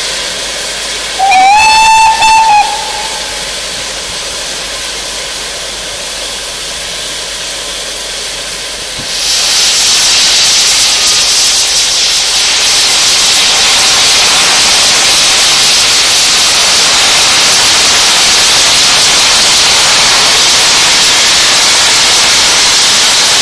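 GWR Castle class steam locomotive 5043 Earl of Mount Edgcumbe sounds its whistle about a second in: one short shrill blast, rising slightly in pitch, with a brief break near its end, over a steady hiss of steam. About nine seconds in a much louder, steady hissing starts as steam blasts from the open cylinder drain cocks.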